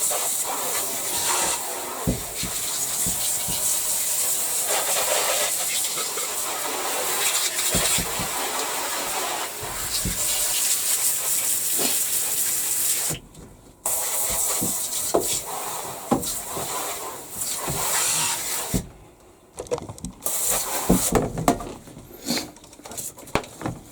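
Water from a tap running steadily onto a washing machine part being rinsed, a hissing spray. It breaks off briefly about 13 seconds in, stops for good a few seconds later, and is followed by scattered knocks and clatter of the part being handled.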